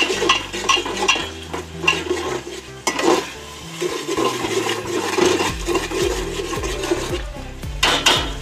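Metal spatula stirring and scraping frying masala in an aluminium pot, with repeated clinks and scrapes against the pot over a steady sizzle.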